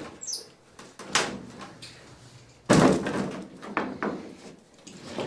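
Knocks and clatter inside a wire-mesh cage room as its furniture is moved about, with one loud bang about two and a half seconds in. A short high squeak sounds near the start.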